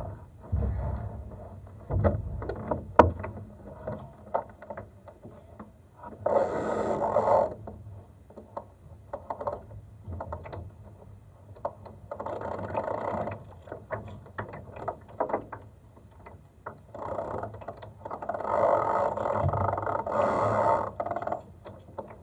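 Laser dinghy under way in light wind: scattered clicks and knocks from its fittings and rigging, with water washing against the hull in three surges of one to three seconds.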